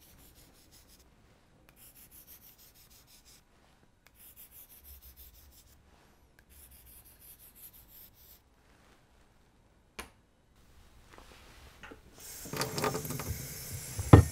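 A pencil scribbling squiggle marks across the faces of four ceramic whetstones, four separate stretches of scratching one stone after another. About two seconds before the end, tap water runs into a utility sink, with a sharp knock near the end.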